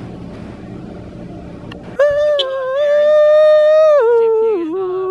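Low restaurant room noise, then about two seconds in a person's voice cuts in with a loud, long held high note. It steps down and wavers lower about two seconds later, then settles on a held note again.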